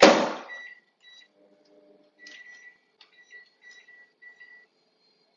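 Microwave oven door shut with a bang, then a string of short, high, single-pitch keypad beeps as the time is set and the oven started, with the oven's low running hum coming in under the later beeps.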